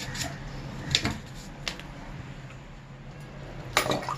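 A few light clicks and taps of the washing machine's plastic filter being handled, over a low steady hum; the sharpest clicks come near the end.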